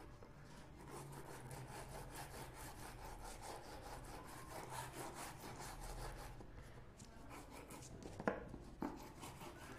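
Toothbrush bristles scrubbing a laptop RAM module wetted with isopropyl alcohol, in quick rhythmic back-and-forth strokes. Two sharp taps come near the end.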